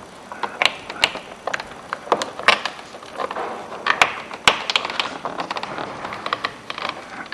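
Irregular clicks, clacks and short scrapes of hands and tools working on a pickup truck door during disassembly: plastic and metal parts knocking and sliding.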